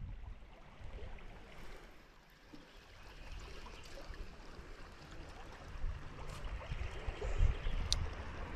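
Creek water running over a shallow stony bed, steady throughout. A low rumble builds from about six seconds in, and there is a single sharp click near the end.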